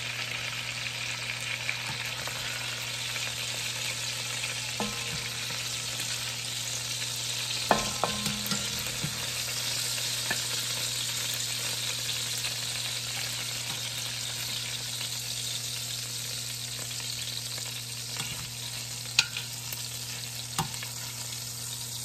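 Chicken thighs frying in olive oil and bacon grease in an enameled cast-iron Dutch oven: a steady, quite loud sizzle. A few sharp clicks from metal tongs against the pot come as the browned pieces are turned and lifted out.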